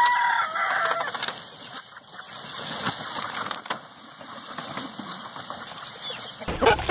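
Chickens clucking and calling in their pens, with a longer pitched call in the first second.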